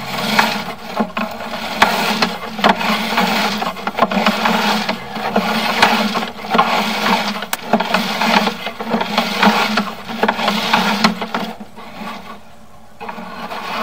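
Sewer inspection camera's push cable being pulled back by hand out of the sewer line, an uneven scraping and rattling over a steady low hum that eases off near the end as the camera comes to a stop.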